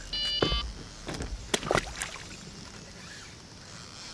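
Electronic carp bite alarm on a rod pod beeping rapidly for about half a second as a fish takes line, followed by a few sharp knocks and clicks as the rod is lifted off the pod.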